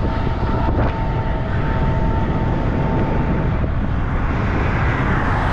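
Steady, loud rumble of wind and road noise while cycling beside a double-stack container freight train. A faint, steady high tone runs through the first few seconds.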